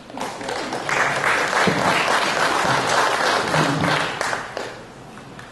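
Audience clapping, which swells within the first second, holds for about three seconds and dies away near the end.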